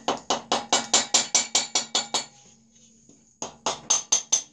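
Rubber mallet tapping the base of an air-cooled VW engine cylinder to work it loose from the crankcase, quick light blows at about five a second. A run of about a dozen taps, a pause of about a second, then about five more.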